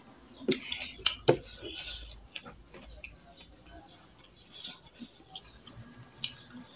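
Close-miked eating by hand: wet chewing and mouth smacks, with fingers squishing rice and curry against a ceramic plate. Scattered sharp clicks and short hissy smacks come through, the loudest in the first two seconds.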